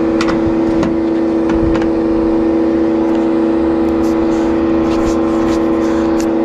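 Air-conditioning condensing unit running with a loud, steady mechanical hum, with scattered light clicks and taps over it.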